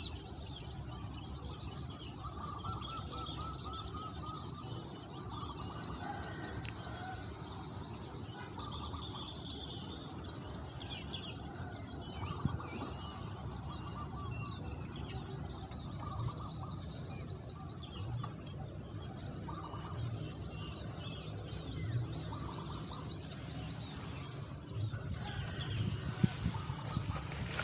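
Wild birds chirping and calling, many short repeated notes and trills, over a steady high-pitched whine that cuts off near the end. A few knocks sound in the last couple of seconds.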